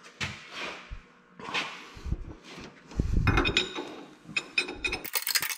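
Metal hand tools clinking and rattling against the compression nut of a tractor hydraulic pressure line at the pump as it is worked loose, with handling knocks, then a run of sharp metallic clicks near the end.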